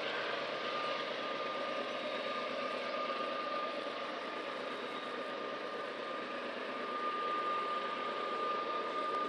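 GE ES44AC diesel-electric locomotive with a V12 diesel engine working hard under load as it pulls a heavy grain train upgrade. It makes a steady rumbling run with a thin, steady high whine over it that grows louder about a second in and again near the end.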